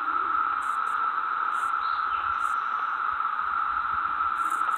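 A steady, even hiss with a constant high note running through it, unchanging throughout.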